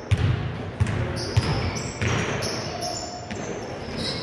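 Basketball dribbled on a hardwood gym floor: four hard bounces, roughly two-thirds of a second apart, in the first two seconds.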